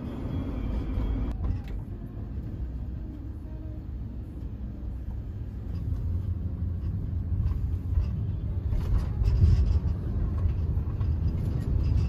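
Low, steady road rumble of a camper van driving, heard from inside the vehicle, swelling louder about nine seconds in.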